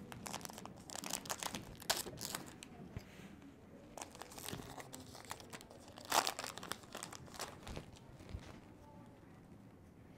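Hands tearing open a Topps Heritage baseball card pack and crinkling its wrapper, in irregular bursts of faint crackling and tearing, loudest about six seconds in.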